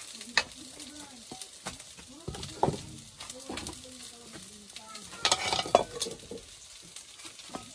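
Food frying in a pan while a metal spatula stirs it, scraping and knocking against the pan; a steady sizzle with sharp clicks throughout and a louder cluster of knocks about five to six seconds in.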